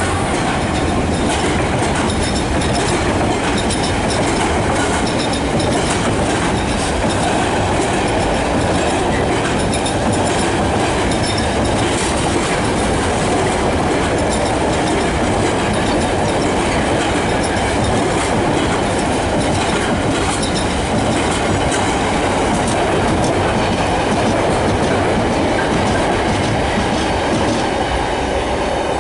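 Long freight train of box wagons rolling past at speed, a steady rumble of steel wheels on rail with repeated clicks as the wheels pass over rail joints.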